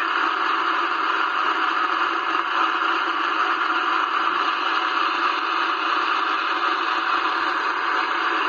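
President Grant CB radio receiving on lower sideband between stations: a steady hiss of band noise and static from its speaker, with no voice coming through.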